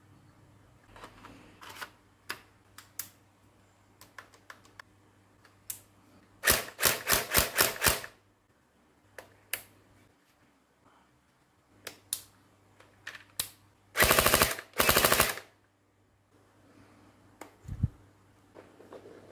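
Electric gel blaster firing two short full-auto bursts, its gearbox and blowback cycling in rapid evenly spaced clacks, roughly seven a second. Small plastic clicks from handling come between the bursts.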